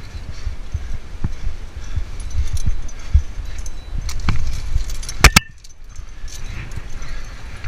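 Metal climbing hardware clinking and jangling on a climber's harness, with rustling and rubbing close to the microphone as the body moves in the crack. A pair of sharp metallic clicks comes about five seconds in.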